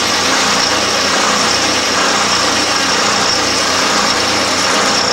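Drill press running at slow speed, its metal-cutting hole saw boring into a clamped wooden block: a steady cutting noise with a thin, steady high whine. With the teeth overhanging the block's edge so the chips can escape, it cuts smoothly without binding.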